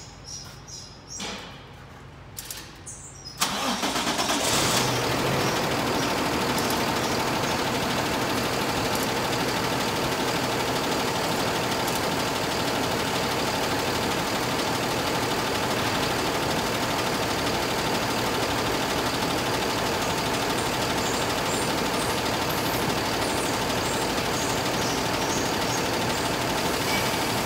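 A Cummins ISB6.7 inline-six turbo-diesel truck engine starting up about three and a half seconds in. It is louder for a moment as it catches, then settles into a steady idle.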